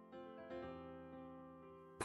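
Soft background piano music, a few sustained notes played quietly.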